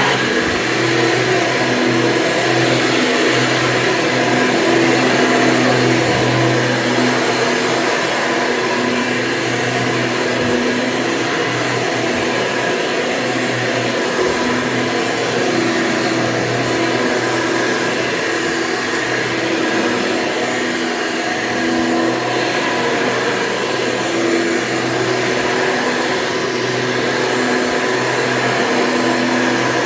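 1996 Hoover Convertible U5063-930 upright vacuum cleaner running steadily, its motor fitted with a 20-bladed fan, with a constant drone.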